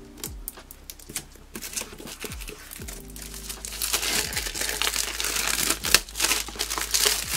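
Plastic shrink-wrap being nicked with scissor tips and peeled off a cardboard marker box. A few light clicks come first, then crinkling that grows much louder about halfway through as the film is pulled away.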